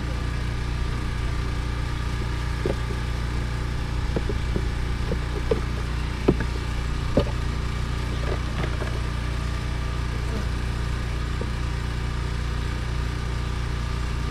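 Portable generator engine running steadily, powering a honey pump that pushes corn syrup through a hose into the beehives. A few light clicks and knocks come between about three and seven seconds in.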